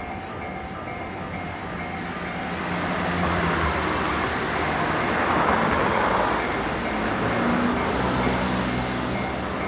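Japanese level-crossing warning bell ringing in a quick, even beat, about three strikes a second. After about two seconds it is drowned out by a passing train, whose running noise swells to its loudest midway and stays loud. The bell is heard faintly again at the very end.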